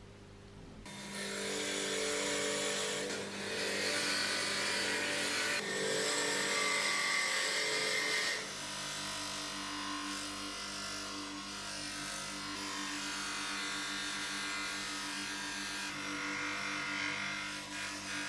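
Bench grinder running, a thin steel rod held against its spinning wheel: a steady motor hum under a hissing rub of metal on the wheel. The sound comes in about a second in and shifts a little quieter about halfway through.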